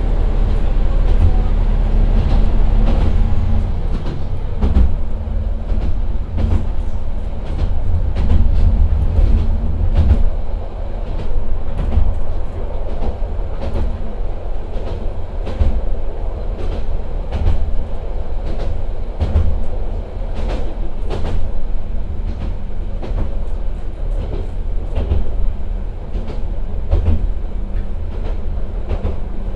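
Interior running sound of the Akechi 10 diesel railcar: a steady low drone from its Nissan Diesel PE6HT03 engine under the floor, with wheel and rail noise and short, irregular clicks from the rail joints and track.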